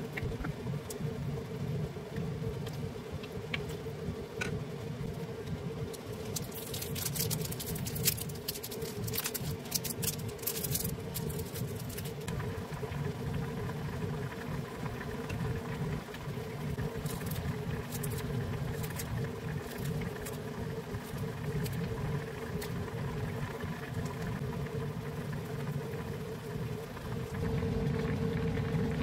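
Pot of pork-belly kimchi stew simmering and bubbling over a steady low hum, with a run of clicks and scrapes from a wooden spoon stirring against the pot about a third of the way in.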